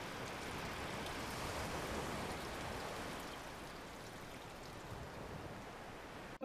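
Faint, steady rushing ambience, like water or wind, easing off a little in the second half.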